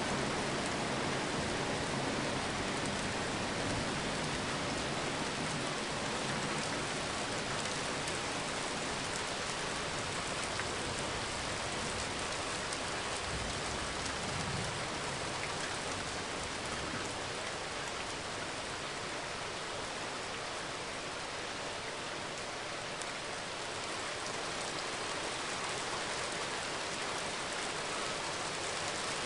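Steady rain falling on hard surfaces, an even hiss that holds without breaks.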